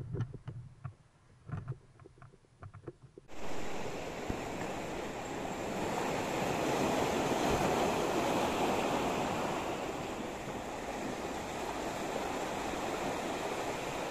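A few light clicks and knocks, then from about three seconds in a steady wash of sea surf breaking and foaming over rocks and a pebble shore.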